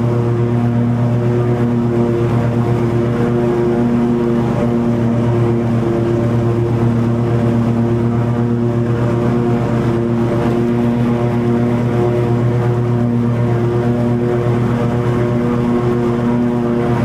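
Toro TimeCutter 50-inch zero-turn mower running steadily while mowing long grass, its engine holding an even, unchanging pitch.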